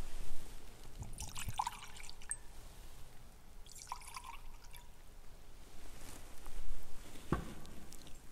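Wine poured from a glass cruet into a metal chalice in two short pours, a trickle with a faint ring from the vessel. A dull knock comes near the end.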